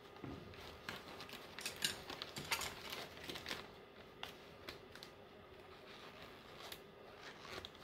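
Paper coffee filters crinkling and rustling as hands in plastic gloves pick them apart from a stack: faint, irregular crinkles with a few sharper ticks.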